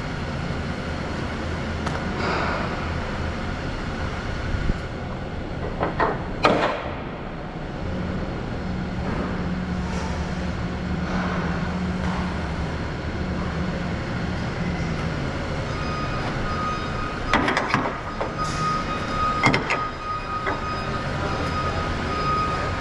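A large engine running steadily at idle, with a few sharp metallic knocks and clanks, two about six seconds in and more near the end, and a thin steady whine joining in late.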